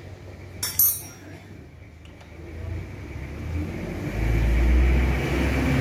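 A spanner clinks sharply against metal about a second in while the injector nozzle is being unscrewed from a single-cylinder diesel engine. A low rumble then builds over the last two seconds.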